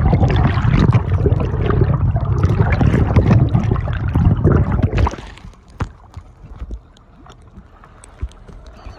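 Water rushing and churning against a camera held underwater: a loud low rumble with crackling that stops abruptly about five seconds in as the camera comes up out of the sea. After that, quieter sea water lapping with small scattered splashes.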